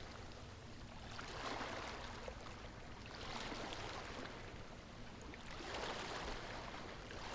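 Ocean waves washing in softly, a faint hiss of surf that swells and ebbs every two to three seconds.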